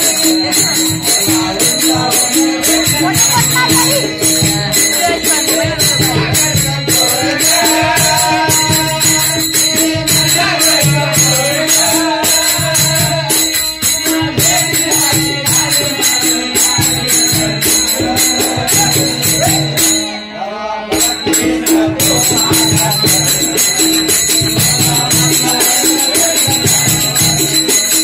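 Lively dance music with jingling, rattling percussion on a steady beat over a held low note and a wavering melody line; it drops out briefly about twenty seconds in.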